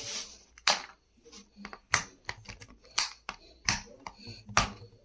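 Mechanical keyboard parts being worked by hand: about five sharp clicks with smaller ticks between, at uneven intervals.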